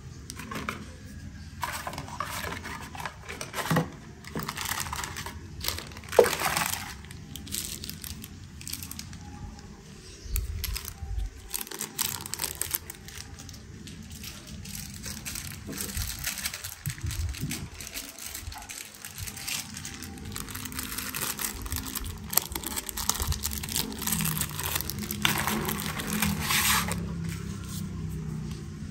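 Unboxing sounds: wrapping and packaging crinkling and tearing in irregular rustles, with scattered sharp clicks and knocks of parts being handled, the loudest about six seconds in.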